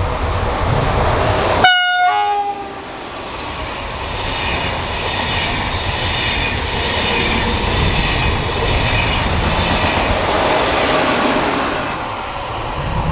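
A train horn gives a short blast about two seconds in, a clipped high note dropping to a lower one. A train then passes, its wheels on the rails making a steady rushing noise for several seconds before it eases off near the end.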